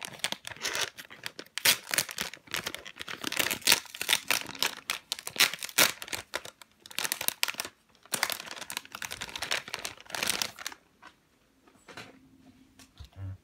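Clear plastic squishy packaging crinkling and rustling as hands pull a slow-rising popcorn squishy out of its bag; the crinkling stops about eleven seconds in, leaving only a few faint knocks.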